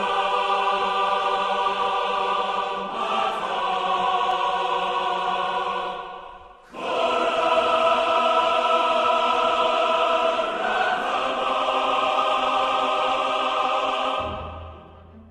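Choral music: voices holding long sustained chords, shifting to new chords a few times, with a brief break about six and a half seconds in and a fade near the end.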